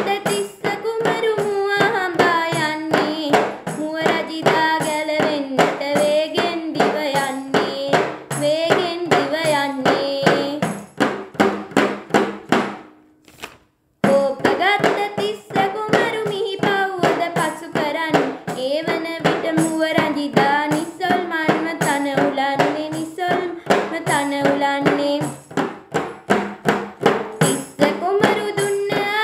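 A girl singing a song unaccompanied except for her own hand-beaten tambourine, which keeps a steady beat under the melody. Both break off for about a second around halfway through, then start again.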